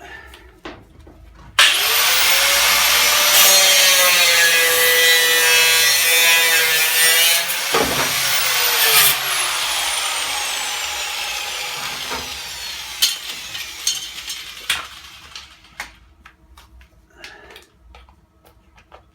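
Angle grinder switched on about a second and a half in, cutting and grinding away the excess steel of a freshly welded patch, its pitch dipping as it bites. About eight seconds in it is switched off and winds down over several seconds with a falling whine. A few light knocks follow.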